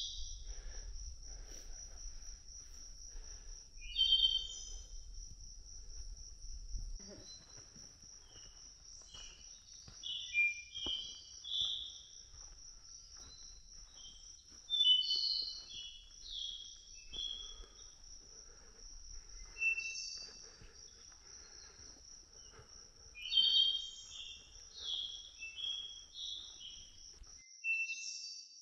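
Forest ambience: an insect buzzing steadily at a high pitch, with many short bird chirps and calls scattered over it. A low rumble underneath stops about seven seconds in.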